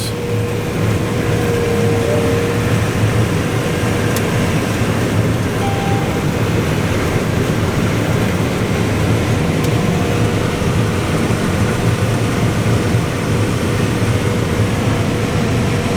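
Farm vehicle engine running steadily under way, heard from inside the cab, with a faint steady whine over the low drone.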